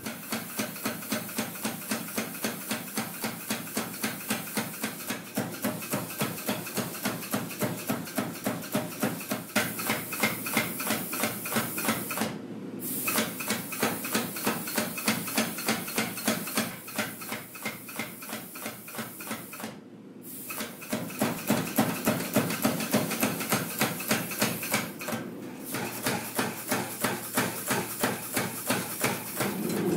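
Power hammer pounding a red-hot steel rod held between its dies, a quick even run of blows at about three a second, stopping briefly three times.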